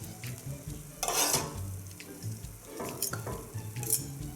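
A utensil stirring and scraping beef strips and melting cheese in a frying pan, with a light sizzle underneath. There are a few louder scraping strokes, the strongest about a second in and another near the end.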